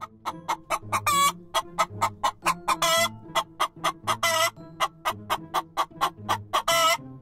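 Domestic hens clucking: a quick run of short clucks, about four a second, broken by longer drawn-out squawks about one, three, four and seven seconds in.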